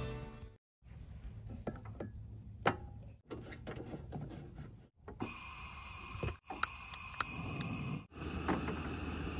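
A two-burner propane camp stove being set up and lit: scattered metal clicks and knocks as the brass hose is fitted to the canister, then a steady hiss with several sharp clicks as a long-reach lighter is put to the burner. The sounds come in short pieces with brief gaps between them.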